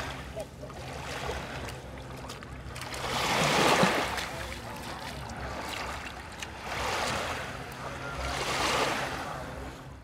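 Small, gentle waves lapping onto a sandy shore right at the water's edge, washing in several times with the loudest wash about three to four seconds in. A low steady hum runs underneath.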